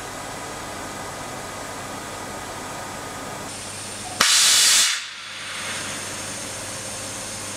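NORTE VS 500 Speed vertical machining center running with a steady hum. About four seconds in, a click is followed by a loud hiss of compressed air lasting under a second that cuts off suddenly.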